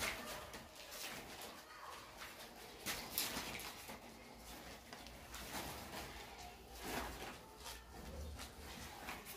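Faint, irregular rustling and swishing of plastic-insulated electrical wires being pulled and gathered by hand, with stronger swishes about three and seven seconds in.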